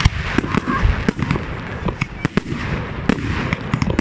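Fireworks display: aerial shells bursting in a rapid, irregular run of bangs and crackles over a continuous hiss.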